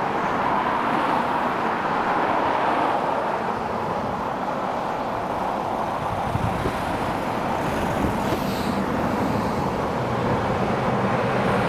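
Road traffic noise: steady noise of cars and their tyres on the road, with a car going by about halfway through.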